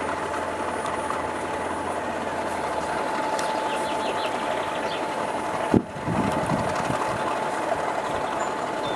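Heritage diesel locomotives running at idle: a steady engine drone with a constant whine over it, and a single sharp knock just before six seconds in.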